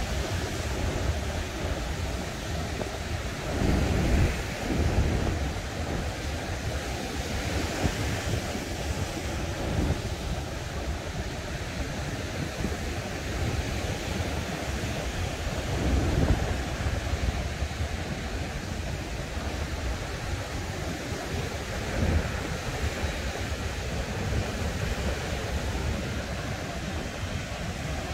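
Ocean surf breaking on a beach, a steady wash of noise, with wind buffeting the microphone and a few louder low surges about four, sixteen and twenty-two seconds in.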